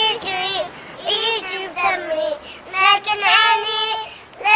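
A child singing without accompaniment, in high-pitched short phrases of about a second with brief pauses between them.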